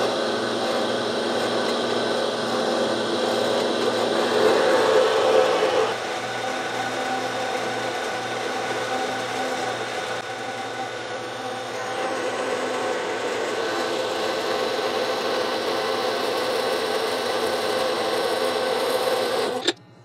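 Horizontal metal-cutting bandsaw running, its blade sawing through a 1-inch 6061 aluminum round bar with a steady cutting noise over the motor's hum. The noise is louder for a couple of seconds about four seconds in, then cuts off suddenly near the end as the cut finishes.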